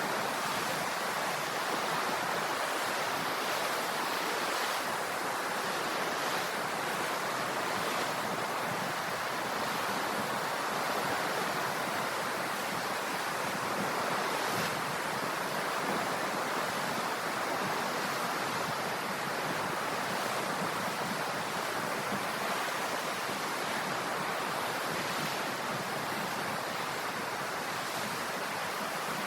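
Sea waves washing on the shore in a steady, continuous rush, with no single breaker standing out.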